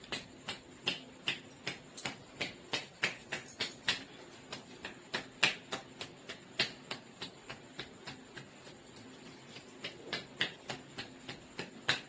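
Hands tapping and slapping on a head during a head massage, at about three strokes a second. The strokes come in three runs with short lulls between them.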